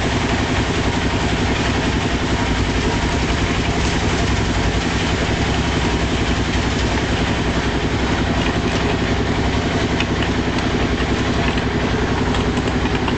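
Engine of a concrete mixer running steadily at an even, fast chug, with no change in speed.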